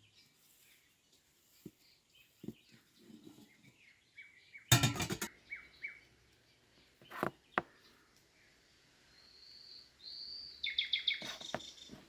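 Small birds chirping, with a high whistled note and a quick trill near the end. Occasional knocks and one loud clatter about five seconds in.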